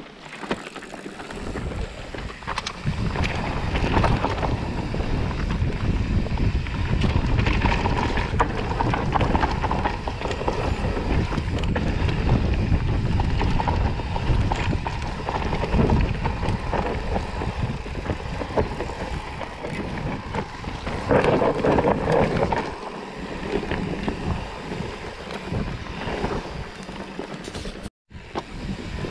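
Mountain bike riding a dirt forest trail, heard from a camera on the bike or rider: wind rushes over the microphone, with tyre noise and frequent rattles and knocks as the bike rolls over the bumpy ground. The sound drops out for a moment near the end.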